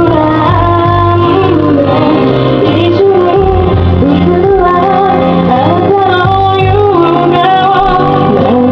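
A woman singing a slow pop ballad live over backing music. The recording is loud and rough.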